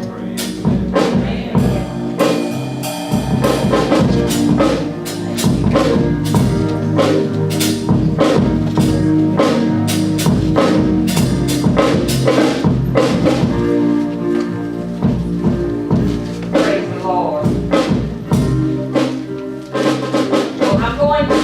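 Instrumental band music: a drum kit keeps a steady beat over sustained bass and instrument tones.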